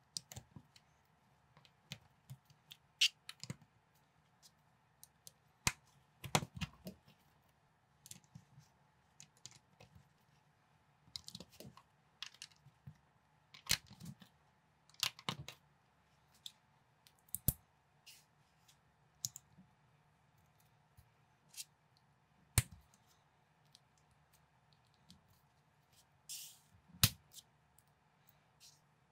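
Plastic LEGO-compatible bricks clicking and snapping together as they are pressed onto a round plate and joined by hand: irregular single clicks with a few sharper snaps, and a short rustle of handled pieces near the end.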